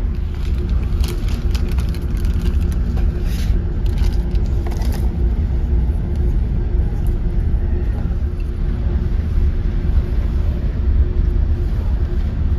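Ferry's engines droning as a steady low rumble with a faint hum, heard inside the ship. Brief crackles and clicks come in the first few seconds.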